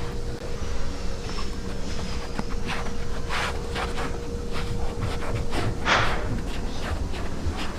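Sofa-factory workshop noise: irregular knocks and clicks of hand tools at work over a steady low hum, with a faint steady tone that fades out about two-thirds of the way through.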